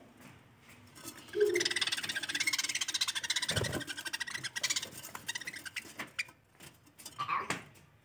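Budgerigars chattering: a rapid, buzzy stream of clicks and chirps that starts about a second and a half in and runs for a few seconds. A low thump comes midway, and a short call comes near the end.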